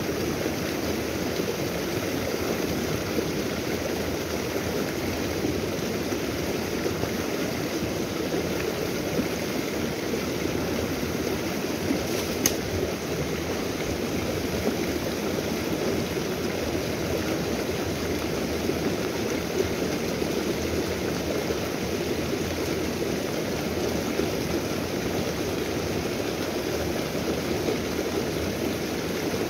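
Fast-running stream current, a steady rush of flowing water, with a single sharp click about twelve seconds in.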